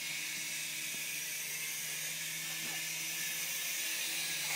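Syma S107G miniature remote-control helicopter in flight, its small electric motors and rotors giving a steady whir with a low hum.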